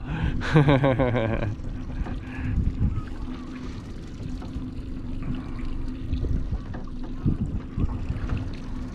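A man laughing for about a second and a half near the start, then wind and water noise aboard a small fishing boat drifting at sea, with a faint steady low hum and a few soft knocks.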